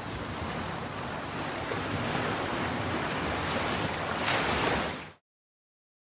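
Ocean surf, a steady wash of waves that swells near the end, then cuts off abruptly into a second of dead silence.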